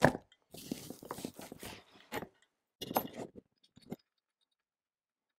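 Handling noise from a single-handle bathroom faucet and its parts being picked up and worked by hand: scattered clicks and scrapes that stop about four seconds in.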